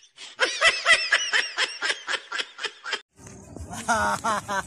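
High-pitched snickering laughter: a fast run of short pitched 'hee' notes, several a second, that stops abruptly about three seconds in.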